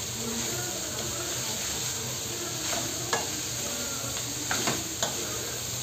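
Diced vegetables and meat sizzling in a nonstick wok as a spatula stirs and tosses them, with a few short scrapes of the spatula about three seconds in and again near the end.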